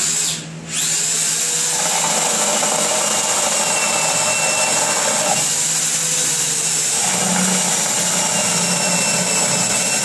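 Handheld power drill driving a homemade around-the-corner drill bit into wood. After a short burst at the start, it runs steadily from about a second in, a continuous motor whine whose tone shifts slightly partway through.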